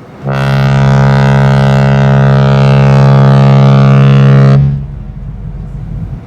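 Cruise ship Odyssey of the Seas' typhon horn sounding one long, steady, deep blast of about four seconds, starting just after the beginning and stopping a little past the middle.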